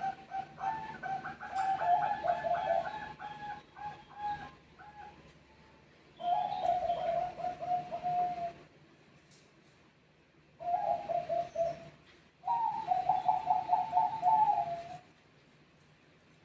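Bangkok zebra doves (perkutut) cooing and answering each other in phrases of rapid staccato notes. There are four bursts of calling, the first and longest with two voices overlapping, and then the birds fall silent near the end.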